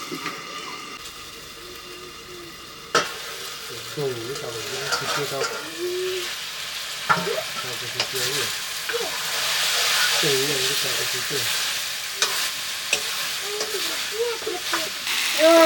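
Food frying and sizzling in a hot pan while being stirred. A sharp knock comes about three seconds in, and the sizzle then grows louder, swelling for several seconds before it eases off.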